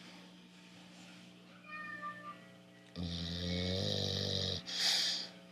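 Bulldog snoring: after a quiet stretch, one long snore starts about three seconds in and lasts about a second and a half, followed by a short, sharper breath.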